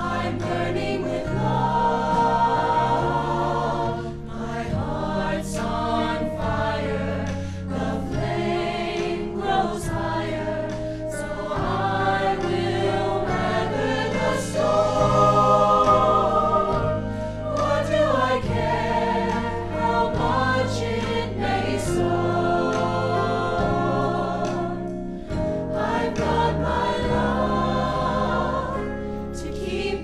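Mixed-voice student choir singing together, male and female voices in harmony.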